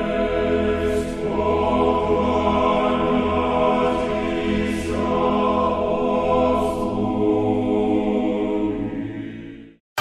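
Choral music: a choir singing a slow chant in long held chords, fading out in the last second.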